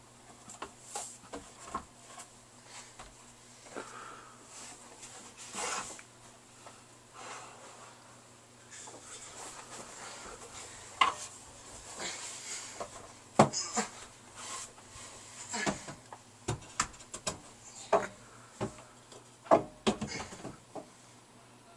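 Scattered wooden knocks and rustling as a person climbs a wooden loft-bed ladder and clambers onto the top bunk among clothes and bedding. The knocks grow louder and more frequent in the second half.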